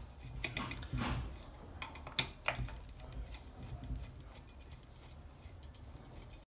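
Phillips screwdriver working the screws out of the intake mesh on a stainless steel Commodore screw pump: faint, scattered clicks and scrapes of the tip in the screw heads, the sharpest a little over two seconds in.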